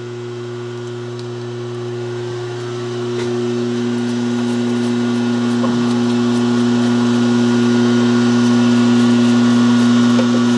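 A motor running steadily with a hum, and a hiss that grows louder over the first few seconds, with a few faint clicks.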